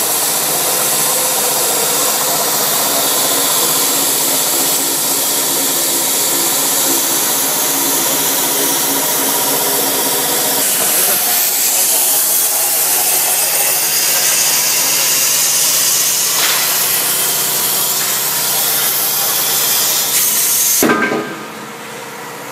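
Steady factory machinery noise: a constant loud hiss with a few steady hums under it. It drops sharply to a lower level about twenty-one seconds in.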